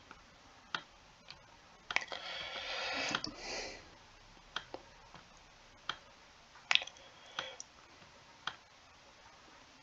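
Quiet computer mouse button clicks, about eight of them at irregular intervals, as a formula is drawn by hand in a paint program. A soft rustling noise runs from about two to three and a half seconds in.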